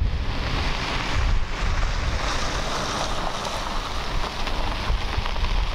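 Strong wind buffeting the microphone: a heavy low rumble under a steady rushing hiss, cutting off suddenly at the end.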